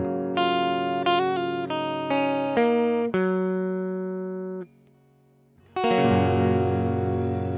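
Guitar playing a short run of single picked notes, each ringing over a held low chord. The notes stop abruptly about four and a half seconds in, and after a second of near silence a sustained chord rings out.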